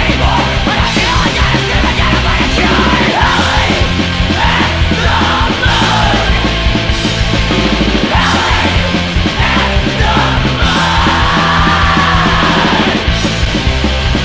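Live punk band playing loudly, electric guitar and bass, with yelled vocals into the microphone.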